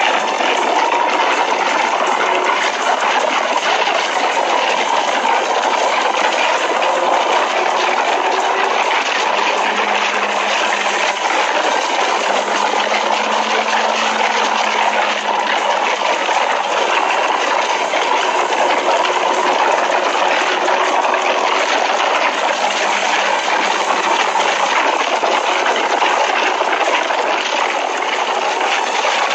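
Steady rush of wind and road noise from a motorcycle moving at highway speed, with a faint low engine hum underneath.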